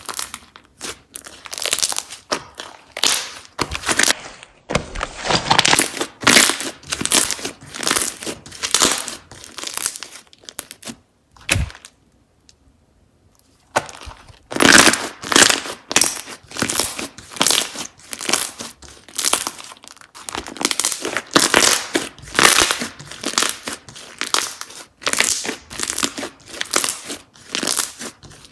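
Slime being squished and pressed by hand, crackling and popping in repeated irregular bursts, with a pause of about two seconds roughly halfway through.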